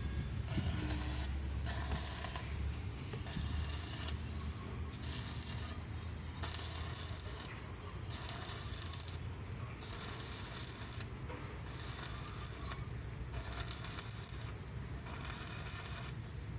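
Stick (arc) welding on a steel container-trailer lock: the electrode's arc crackles and sizzles, swelling and dropping back in stretches of about a second, over a steady low hum.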